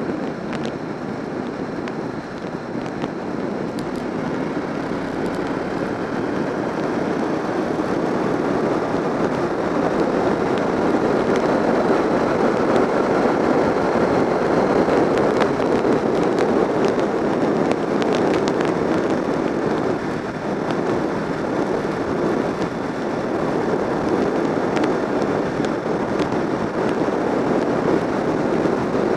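Honda VFR750 V4 sports tourer at speed, heard from a camera mounted on the bike: engine, tyre and wind rush on the microphone blend into a steady noisy rush. It grows louder over the first ten seconds or so and dips briefly around twenty seconds in.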